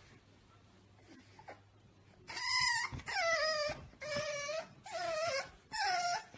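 A dog whining in five drawn-out calls, one after another, starting about two seconds in. Each call bends in pitch.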